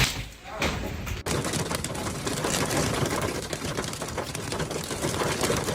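Storm noise from a tornado: a steady rushing of strong wind and heavy rain, dense with crackling clicks, with a sudden break about a second in.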